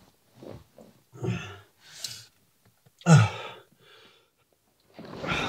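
A person gasping and breathing hard in short, ragged bursts about a second apart, some breaths with a voiced groan, the loudest about three seconds in.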